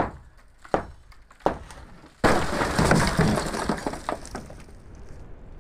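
Hammer blows on a concrete beam, three in the first two seconds. Then a sudden loud crash as the brick mould under the beam breaks away and falls, rattling down for about two seconds.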